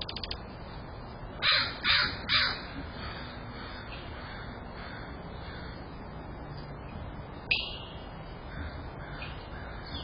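Corvid calling off-picture: three harsh calls in quick succession about a second and a half in, then one shorter call near the end.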